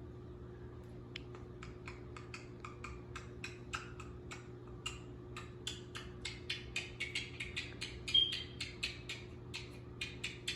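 Quaker parrot making a quick run of sharp clicks and taps, about three to four a second and getting denser toward the end, with one short high chirp about eight seconds in.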